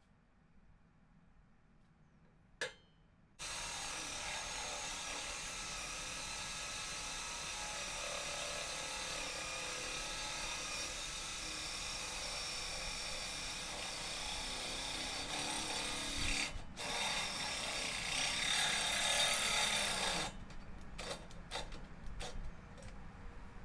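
Electric drill boring a bolt hole through steel, a steady grinding cut with a wavering high squeal. It starts abruptly about 3 seconds in, eases off briefly and stops about 20 seconds in.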